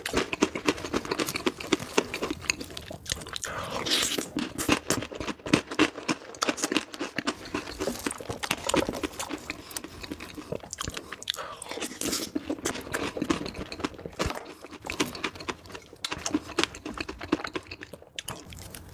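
Close-miked chewing and crunching of a person eating strawberry cake soaked in milk and cream, with chocolate balls, in dense irregular mouth clicks.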